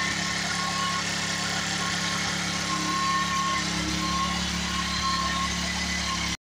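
A GY6 scooter's single-cylinder four-stroke engine, its top end freshly rebuilt with an 80cc big bore kit, idling steadily. The sound cuts off suddenly near the end.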